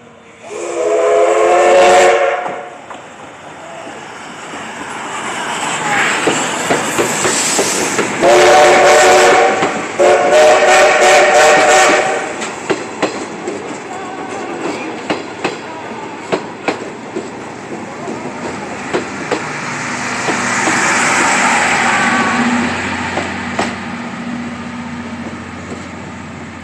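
Steam locomotive of the Chichibu Railway's Paleo Express (C58 363) passing, sounding its steam whistle: one blast near the start, then two long blasts back to back about eight seconds later. It is followed by the coaches' wheels clicking over rail joints at an even beat.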